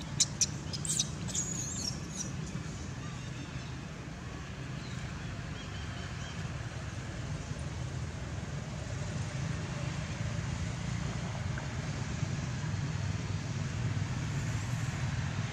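Steady low rumble throughout, with a few sharp clicks and brief high squeaks in the first second or so.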